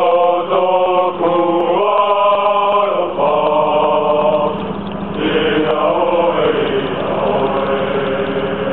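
A group of men chanting a Polynesian song together, in long held notes that shift in pitch every second or so, over a steady low hum.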